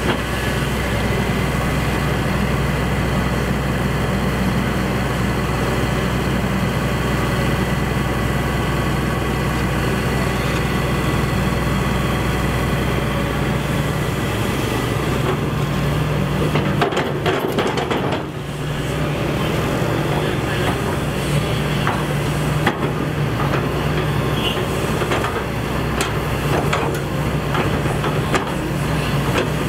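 Excavator's diesel engine running steadily, with a cluster of knocks about halfway through and a few more single knocks later.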